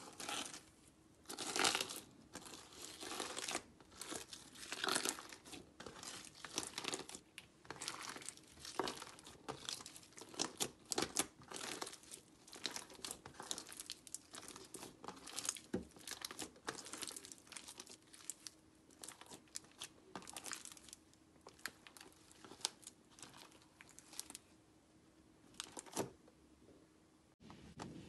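Crushed tortilla chip pieces crackling and crunching in thick slime as hands press and knead them, in quick irregular crackles that thin out over the last third.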